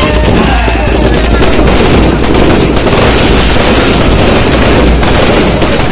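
Fireworks going off in a loud, rapid, unbroken volley of overlapping bangs and crackling.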